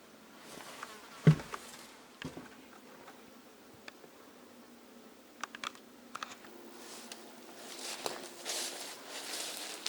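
A few sharp knocks and light clicks, the loudest a thump about a second in, then rustling that grows near the end.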